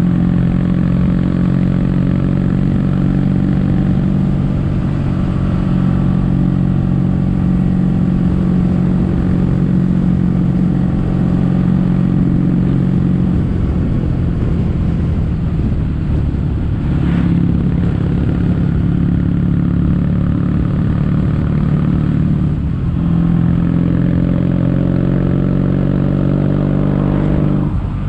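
Kawasaki W800's air-cooled parallel-twin engine running under way through Yamato stainless-steel Cabton-style silencers. The exhaust note holds steady, dips briefly a few times, and climbs in pitch again after each dip as the bike pulls.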